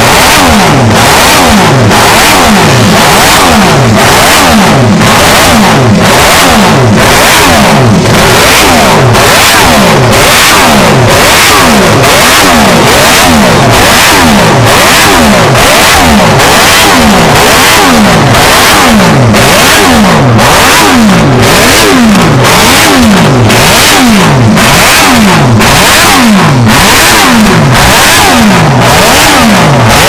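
Classic MV Agusta multi-cylinder four-stroke racing engine revved over and over with no load on its paddock stand. Each blip climbs sharply and falls back, about once a second, very loud.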